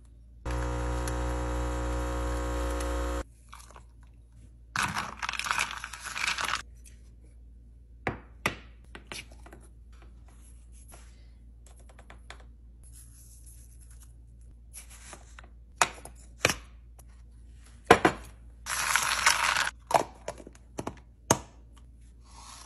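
Sounds of making an iced coffee by hand: a small appliance motor runs steadily for about three seconds near the start, followed by scattered taps, clinks and scrapes of utensils and containers, with two short rustling or pouring bursts, one a few seconds in and one near the end.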